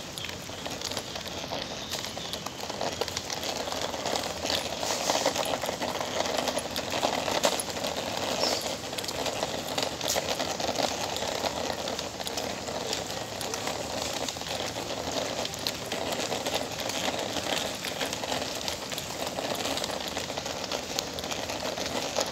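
Small hard wheels of a kick scooter rolling over wet asphalt, a steady rumble with a constant rattle and scattered clicks.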